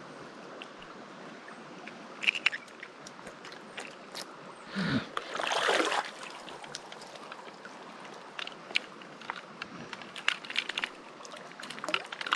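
Creek water running steadily, with scattered clicks and taps of close handling and a short, louder splashy swish about five seconds in.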